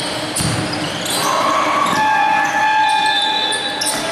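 Basketball dribbled on a hardwood gym court during a game, the bounces echoing in the hall. About a second in, a high tone rises and then holds steady for about two seconds.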